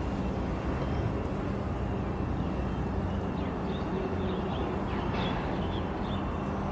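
Steady low drone of distant engines, with a few short bird chirps between about two and a half and five and a half seconds in.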